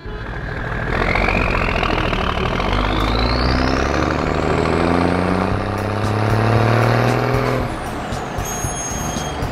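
Cartoon semi-truck engine sound effect revving up steadily, its pitch slowly rising alongside a high whistling sweep that climbs over several seconds; both cut off about eight seconds in. A few short chiming tones follow near the end.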